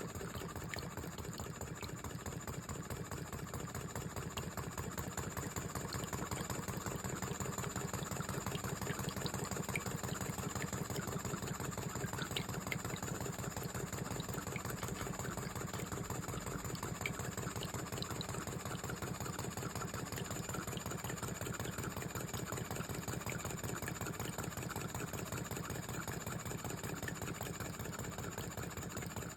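Tiny Power model steam engine running steadily, driving a 1925–1930 Pericaud toy water pump, with a fast, even mechanical beat that keeps the same pace throughout.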